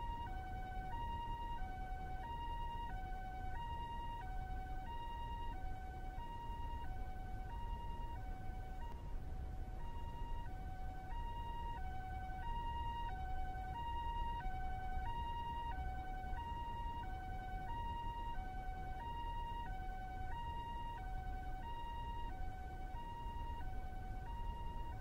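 Japanese two-tone ambulance siren alternating steadily between a higher and a lower note, one high-low cycle about every 1.3 seconds, over a low steady rumble.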